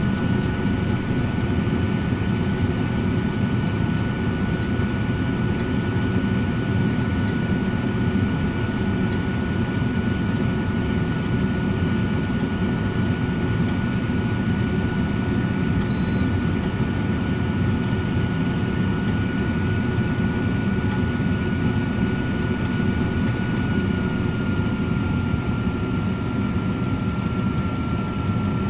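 Cosori air fryer oven running, its convection fan giving a steady whir with a thin high whine that drops slightly in pitch near the end. A brief high beep sounds about halfway through.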